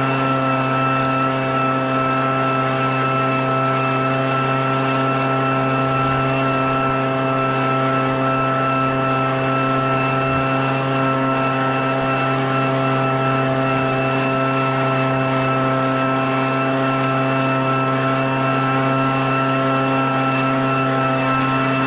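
Echo PB-400E backpack leaf blower's two-stroke engine running at a steady speed, its pitch holding even.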